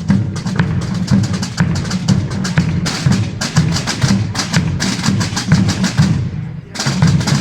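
Holy Week procession drum corps of snare drums and bass drums (tambores and bombos) playing a fast, dense rhythm together. The playing briefly drops away about six seconds in, then comes back in at full strength.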